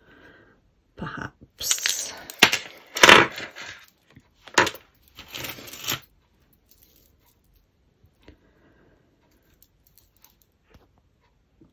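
Costume jewellery jangling and clinking in several loud bursts as tangled chains and beads are rummaged and pulled from a pile, then only a few faint clicks for the last few seconds.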